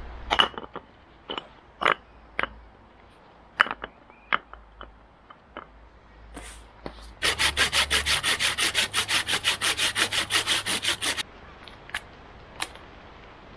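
A series of sharp clacks of loose stones being set against one another, then about four seconds of fast, even strokes of a small folding hand saw cutting through a dry branch. Two more clacks near the end.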